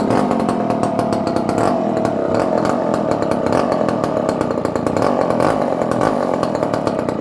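Old Dolmar 118 Super two-stroke chainsaw engine running at a steady speed, then starting to die away right at the end. The choke is not helping it run.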